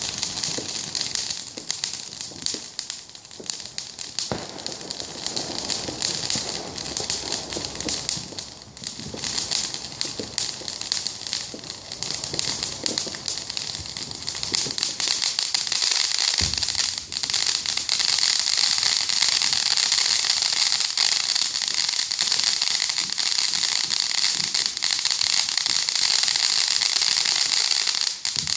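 Fireworks crackling: rapid dense crackles with a few low booms. About two-thirds of the way in, the crackling thickens into a continuous sizzling crackle.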